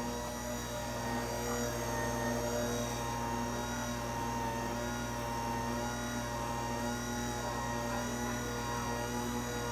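A small electric motor humming steadily at a constant pitch.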